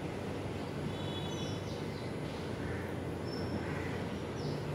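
Steady room ambience with a low hum, with a few faint, short high-pitched chirps or squeaks scattered through it.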